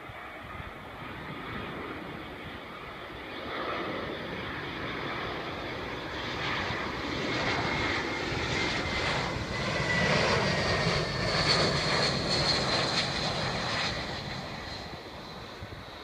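Airbus A320-231 jet airliner with IAE V2500 turbofans, passing low on final approach to land. Its engine noise swells to a peak and then fades, with a whine that drops slightly in pitch as it goes by.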